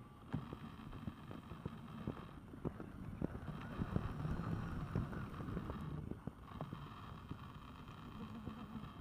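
Arabian horse's hooves thudding on sand arena footing in an uneven run of soft hoofbeats, loudest about halfway through as the horse passes close, over wind rumbling on the microphone.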